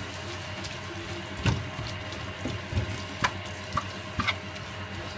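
Water running steadily from a kitchen tap, with a few light knocks.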